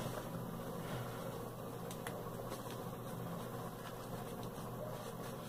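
Steady low background hum, with a few faint light clicks and rustles as hands press a satin ribbon flower and lace onto a small straw hat.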